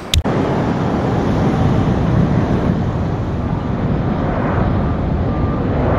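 Jet airliner's engines running as it climbs, a loud steady rumbling roar, after a brief click at the start.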